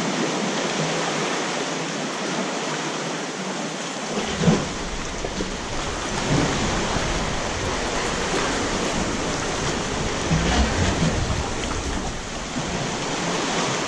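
Sea water surging and sloshing inside a sea cave around a kayak, a steady rushing noise with a few louder splashes, the first about four and a half seconds in.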